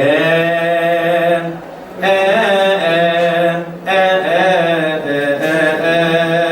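A solo male cantor chanting a Coptic Kiahk praise hymn. He holds long notes with wavering melismatic turns and breaks off briefly for breath twice, about a second and a half in and near four seconds.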